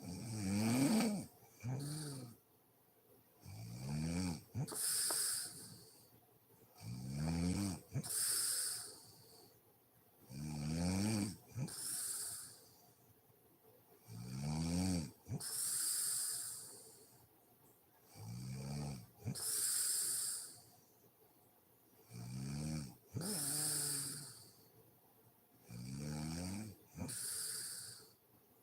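A woman snoring in her sleep, in a steady rhythm of eight breaths about four seconds apart. Each is a pitched snore followed by a breathy exhale.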